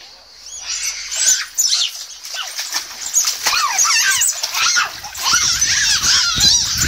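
Wet inflatable vinyl toys squeaking as they are rubbed and squeezed, in many quick high squeaks, with water splashing in a paddling pool over the second half.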